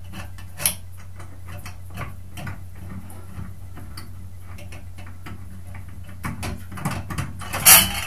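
A screwdriver backing long screws out of a Delta 1700-series bath faucet's metal trim, making small clicks about twice a second. A louder metal clatter comes near the end as loose parts are handled.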